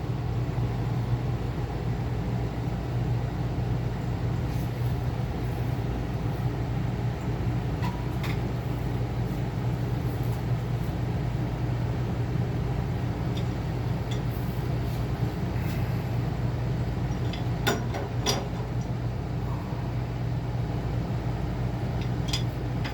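Furnace running during a combustion test: a steady mechanical hum from its burner and blower, with a few faint clicks.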